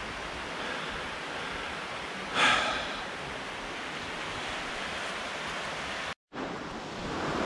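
Steady rushing of a rocky creek, with a short louder burst of noise about two and a half seconds in. The sound cuts out for a moment about six seconds in.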